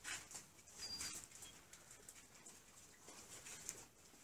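Near silence: faint room tone with a few soft rustles in the first second.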